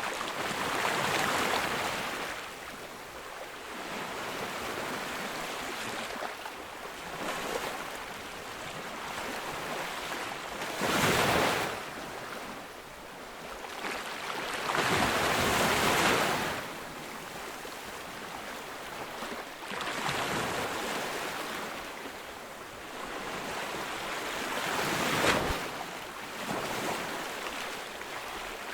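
Ocean waves breaking on a beach: the surf comes in as hissing surges every few seconds and then draws back, with the biggest breakers about eleven seconds in, around fifteen seconds, and near the end.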